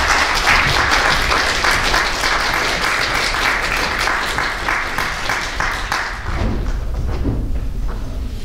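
Audience applauding, dense clapping that dies away after about six seconds.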